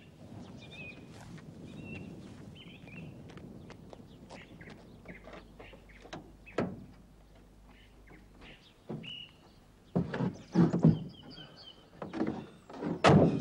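Knocks and thumps of a man climbing into the cab of an old van, ending with a loud bang of the cab door shutting just before the end.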